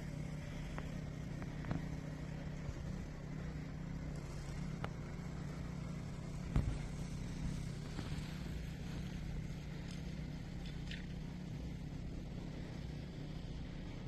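A steady low hum, with a single thump about six and a half seconds in.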